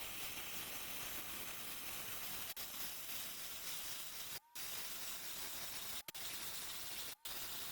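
Small power grinding tool grinding out the rusted screws and retainer clips of a tail-light housing: a steady, hissing grinding noise that breaks off suddenly for an instant a few times.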